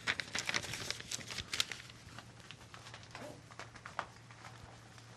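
A quick flurry of sharp clicks and light rustling in the first two seconds, then a few scattered single clicks, over a steady low room hum.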